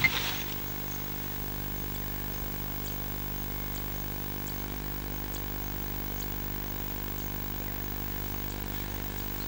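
An engine running steadily at idle: an even hum that does not change.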